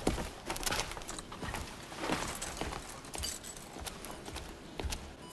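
Footsteps with scattered irregular clicks and knocks, the sound of someone moving about a room and handling things.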